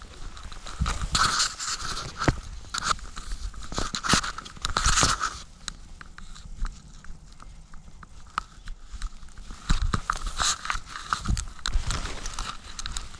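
Wind buffeting a helmet-mounted action camera during a parachute descent under canopy, with irregular crackling and rustling from the wind, fabric and gear. The gusts swell in the first few seconds and again near the end.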